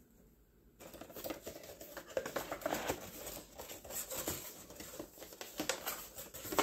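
Paperboard perfume box being handled and opened by hand: card rustling and scraping with small taps and clicks, starting about a second in.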